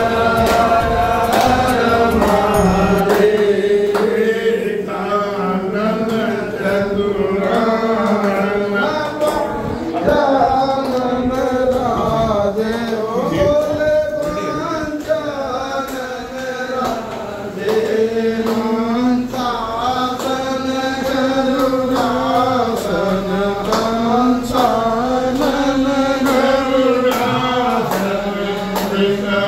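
Devotional Hindu chanting of a mantra, sung continuously to music, with frequent sharp percussive strikes throughout.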